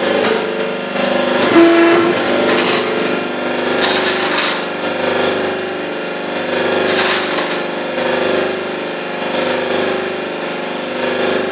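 Electric-motor-driven worm gearbox running steadily with an even mechanical hum, a few clicks and knocks sounding over it about two, four and seven seconds in.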